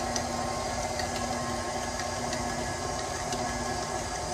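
KitchenAid stand mixer running steadily at low speed, beating thick cream cheese frosting in a glass bowl, with a steady motor hum.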